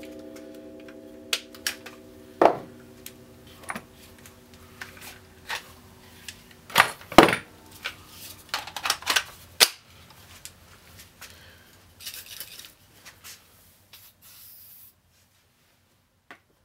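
An electric drill's motor winds down at the start. After it come irregular metallic clicks and knocks of tools being handled against a stainless steel pot, with the loudest pair of clanks about seven seconds in.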